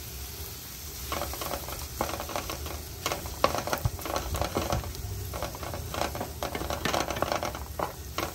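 Onion, garlic and ginger frying in butter in a pan, sizzling, with the tomato just added. A utensil stirs and scrapes the pan in irregular strokes from about a second in.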